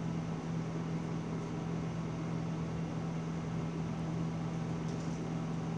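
Steady low hum with a faint hiss underneath: the room's constant background noise, with no change throughout.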